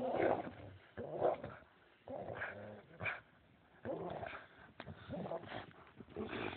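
Dogs growling in play while tugging on a rope toy, in short throaty bouts about once a second.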